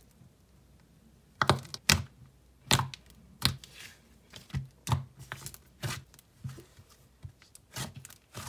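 Soft butter slime being pressed and stretched by hand, giving short sharp clicks and pops, roughly one to two a second, after a quiet first second.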